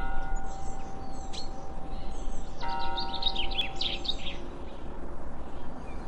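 Birds chirping, a quick run of high notes about three seconds in and the loudest thing here, over a ringing bell-like chime struck at the start and again shortly before the chirps. A low steady rumble of outdoor ambience sits underneath.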